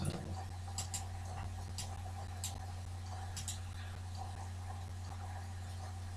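Computer mouse button clicks: about seven short, sharp clicks in the first three and a half seconds, two of them in quick pairs, over a steady low electrical hum.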